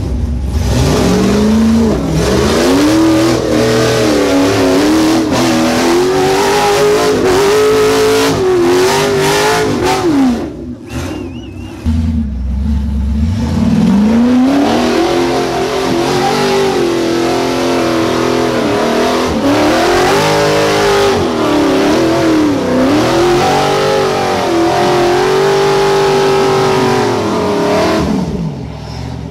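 Ultra4 race buggy's engine revving hard under heavy load on a muddy climb, its pitch repeatedly rising and dipping while held at high revs. The revs drop away briefly about ten seconds in, then climb again and fall off near the end.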